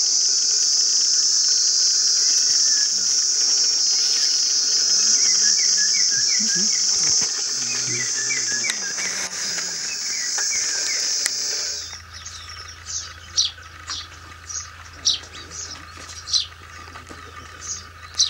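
Steady, high-pitched drone of insects, with a bird's quick chirps over it in the middle part. About twelve seconds in, the drone cuts off suddenly and gives way to a series of short, sharp bird chirps over a low hum.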